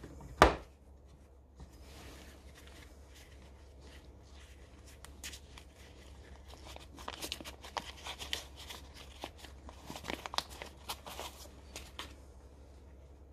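Steel precision angle blocks handled in their wooden case with leather work gloves: a sharp knock about half a second in as a block is set into the case, then light clicks, scrapes and glove rustling as the next pieces are lifted out.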